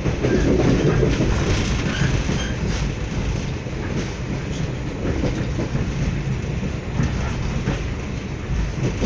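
Steady rumble of a moving passenger train heard inside the carriage: wheels running on the rails, with a few faint clicks now and then.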